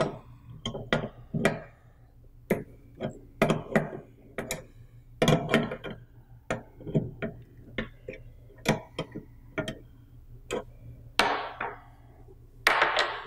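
Steel wrenches clicking and clinking against the brass compression nuts of a solenoid valve's water-line fittings as the nuts are loosened, a string of irregular sharp clicks. Near the end come two louder clatters as a wrench is set down on the table.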